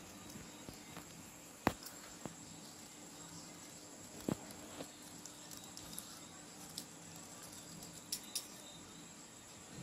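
Scissors cutting a sheet of green paper: short, crisp snips at irregular intervals, the loudest two coming early on and about halfway through, over a faint steady hum.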